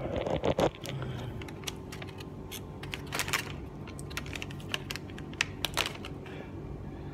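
Scattered light clicks and crinkles of a paper coffee-pod packet and a phone being handled, over a steady low hum.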